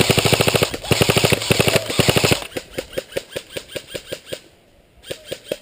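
Airsoft electric rifle firing full-auto in rapid bursts for about two and a half seconds, then quieter, slower single shots at about five a second that thin out near the end.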